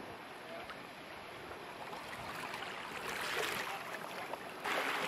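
Wind and water noise over choppy open saltwater, with gusts on the microphone. It swells about three seconds in and gets louder again near the end.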